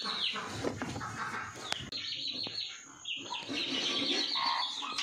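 Birds chirping continuously and busily, with chicken-like calls among them, and a single sharp click about a second and a half in.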